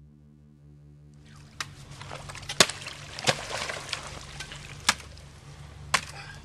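Creek ice being broken with a wooden pole and boots: sharp cracks and knocks about once a second, with water sloshing and trickling between them. A steady low hum runs underneath.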